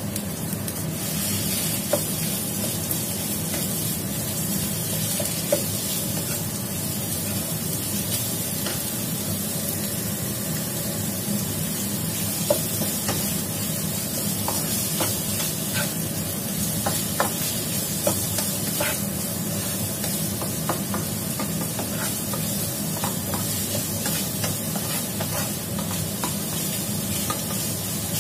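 Minced pork frying in a hot pan with garlic: a steady sizzle that picks up about a second in as the meat hits the oil, while a spatula stirs and breaks up the meat, scraping and tapping the pan now and then.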